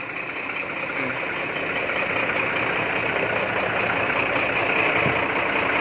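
BharatBenz 4228 truck's diesel engine idling steadily, growing gradually louder.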